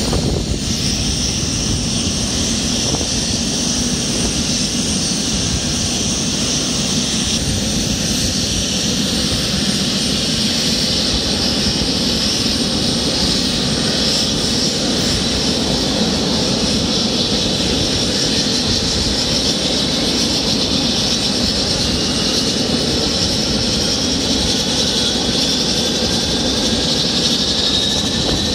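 Convair 580's Allison turboprop engines running on the ground: a steady loud rush with a high turbine whine over it. In the last third a thin whine climbs slowly in pitch.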